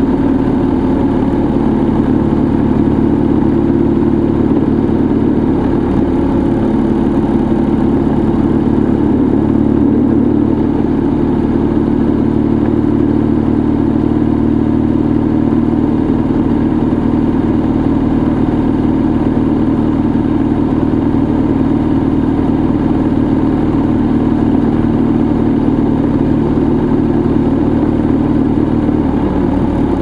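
A vehicle's engine running steadily while driving along a road, with road noise beneath it; its note shifts slightly near the end.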